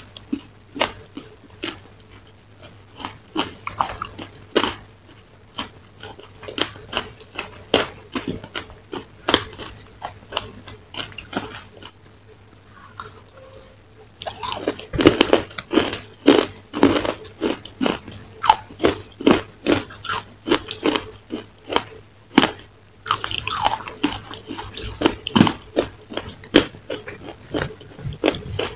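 Close-miked biting and chewing of dry, crumbly reddish-brown chunks: many sharp crunches in quick succession. There is a quieter lull about twelve seconds in, then louder runs of crunching.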